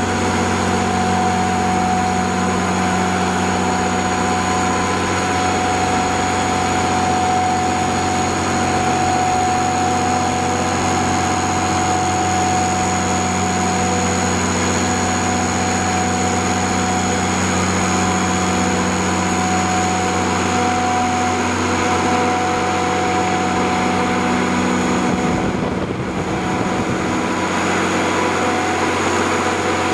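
Cummins 6BT 5.9 L inline-six turbo diesel of an 80 kW Kohler generator set running steadily at constant speed, with a steady mechanical hum. It dips briefly in level near the end.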